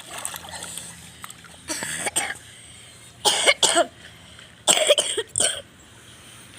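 A young boy coughing in three bouts of several sharp coughs each, after getting swimming-pool water in his mouth.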